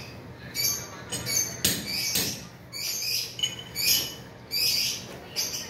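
Hand sanding of a plastered ceiling: short rasping strokes at about two a second, in an uneven rhythm.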